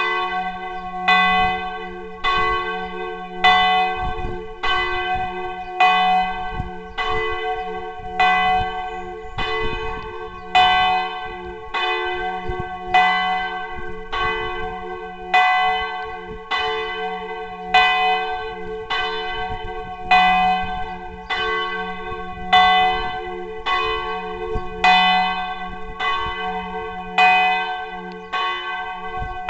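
Large church bell, the tower's campanone, swung full out by its computer-controlled drive and rung a distesa for the noon peal. It is struck about once a second, steady and even, each stroke ringing out over a continuous low hum.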